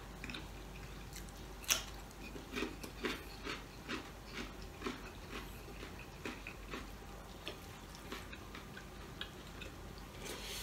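Soft chewing and wet mouth clicks from eating crispy pork sisig with rice, a run of short clicks at about two a second, with one sharper click about two seconds in.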